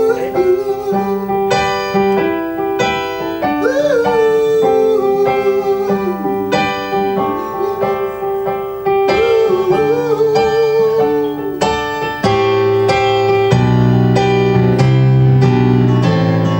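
Yamaha digital piano played solo: a melody over chords, with fuller, heavier bass chords coming in over the last few seconds.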